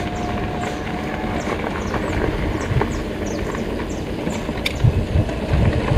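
Mountain bike rolling over a dirt trail: a steady rolling and rattling noise, with heavier knocks from bumps about five seconds in.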